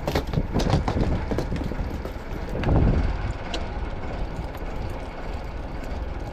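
Steady low rumble of a fishing boat at sea, with scattered knocks in the first second and a louder thump about three seconds in.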